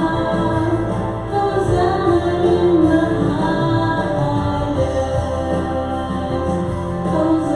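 Music: a woman singing a worship song over instrumental accompaniment.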